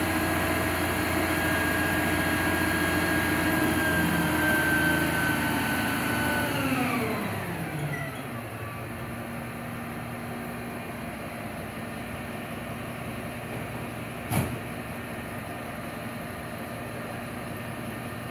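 Refuse collection truck's engine running at raised revs with a steady whine, then the pitch glides down about seven seconds in and it settles to a quieter, steady idle. One sharp bang comes later.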